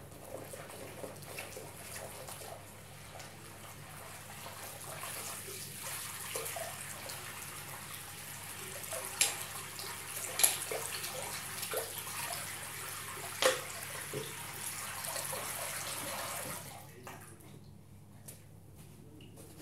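Soapy water draining out of a ceramic washbasin: a steady hiss with small splashes and three sharp knocks in the middle. It stops about three-quarters of the way through as the basin empties.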